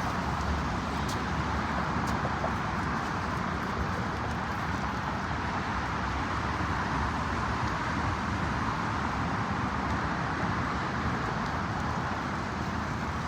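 Steady outdoor background noise: an even, unbroken hiss with no distinct events.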